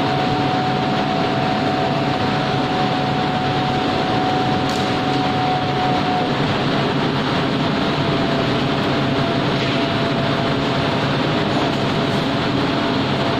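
Steady, loud machinery din of a steel melt shop, with a low hum and a thin steady whine that fades about six seconds in.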